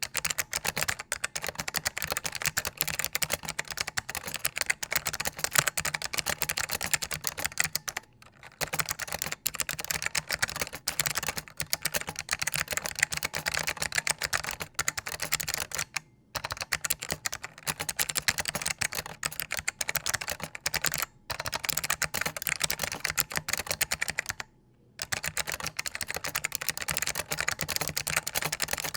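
Fast typing on a SIIG MiniTouch mechanical keyboard with clicky white Alps switches, resting on a small towel that damps table noise: a dense, steady stream of key clicks with four brief pauses.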